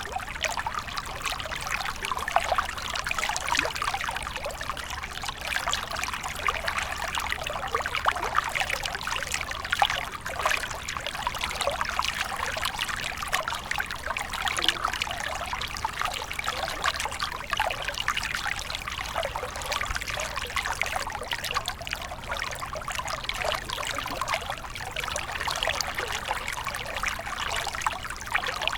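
Water flowing and trickling steadily, a dense, even run of small splashes with no pauses or changes.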